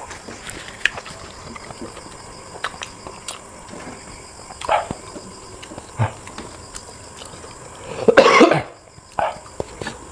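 A person eating close to the microphone: scattered chewing and mouth noises, with one loud cough about eight seconds in.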